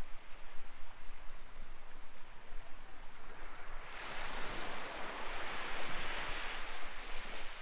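Small waves washing up a pebble beach; the wash swells about four seconds in and eases off again.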